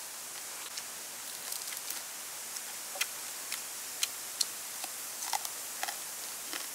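Sharp crisp crackles of deep-fried crispy water snake being torn apart and chewed, scattered clicks coming more often in the second half, over a steady high hiss.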